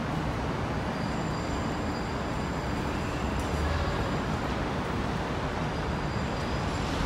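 Steady city street traffic noise, an even rumble of passing vehicles, with a faint high whine through the middle.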